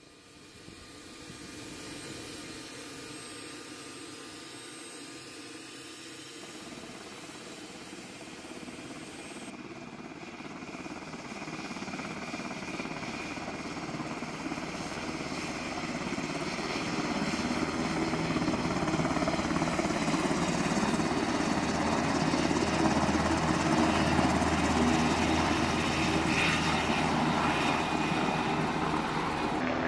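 UH-60 Black Hawk helicopter running with its twin turboshaft engines and main rotor turning, a turbine whine over rotor noise that grows steadily louder as it runs up and departs.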